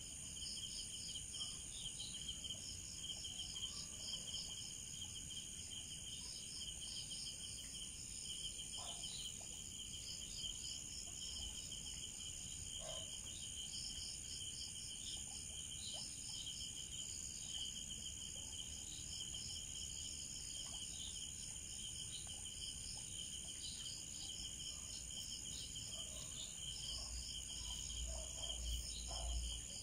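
Night insect chorus: crickets chirping in fast pulses at a couple of pitches over a steady high-pitched trill. A low rumble comes in near the end.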